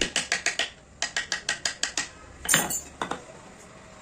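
Rapid runs of light, sharp clicking taps, about eight a second, with a short break after the first second. A louder clatter comes about two and a half seconds in, followed by a couple of single clicks.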